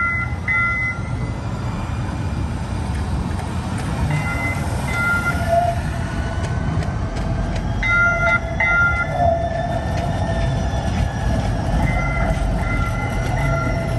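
Atlanta Streetcar, a Siemens S70 electric tram, running past over its rails with a steady low rumble and a faint whine. Short high two-note electronic beeps sound in pairs every few seconds and repeat more steadily near the end.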